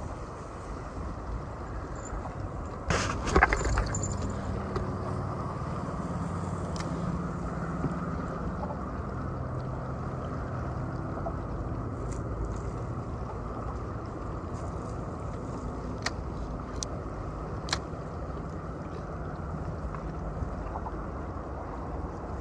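Steady seaside wind and water noise with a faint low engine hum, such as a distant boat or traffic, in the background. About three seconds in there is a short loud clatter, and a few sharp clicks follow later, handling noise from the rod and reel.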